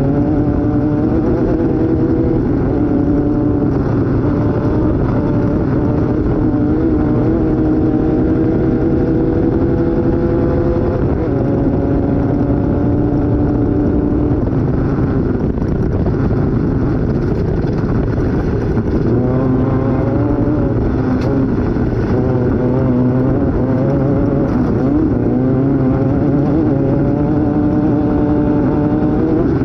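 Off-road race vehicle's engine heard onboard at speed. Its pitch climbs slowly and drops back a couple of times, about a third of the way in and again past the middle, then climbs again near the end. A constant noisy rumble runs underneath.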